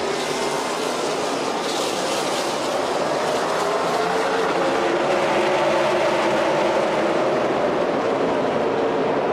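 A pack of NASCAR Cup Series stock cars accelerating hard on a restart. Their pushrod V8 engines make a dense, steady sound, with engine notes gliding up and down. It grows a little louder about four seconds in.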